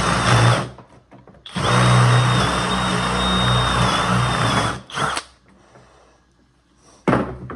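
Jigsaw cutting into a wooden board in starts and stops: one short run, then a longer run of about three seconds with a steady high whine, then two brief blips near the end.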